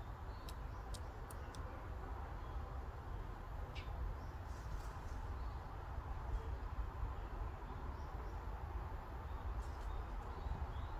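Forest ambience: a steady breeze with a low rumble, and small birds calling now and then. There are a few quick high chirps in the first second and a short falling call about four seconds in.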